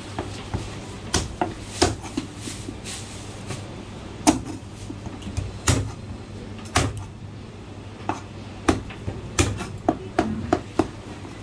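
A meat cleaver chopping braised goose wings on a plastic chopping board: about twenty sharp, irregular chops, some coming in quick runs.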